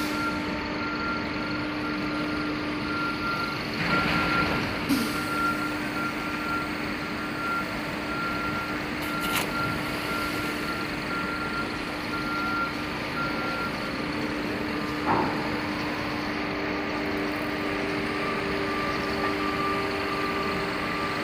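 Steady low engine hum of harbour machinery, with a vehicle reversing alarm beeping over and over through most of it and a few brief knocks.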